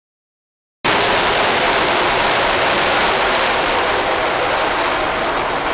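Long March 3C rocket engines firing during the climb after liftoff: a loud, steady rushing noise that cuts in suddenly, under a second in, out of dead silence.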